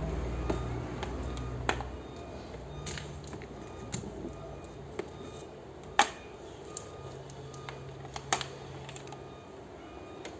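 Small 12-volt DC water pump motor humming, dropping away about two seconds in and briefly humming again twice later. Scattered sharp clicks and knocks throughout, the loudest about six seconds in.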